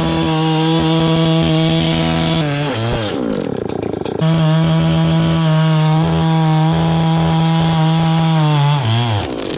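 Two-stroke chainsaw running at full throttle with a steady high pitch. Its revs fall about two and a half seconds in, it is back at full speed from about four seconds, and the revs drop again near the end.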